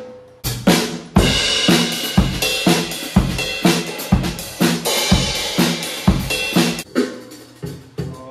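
Drum kit playing a steady beat, about two strong hits a second, with kick and snare under hi-hat and cymbals.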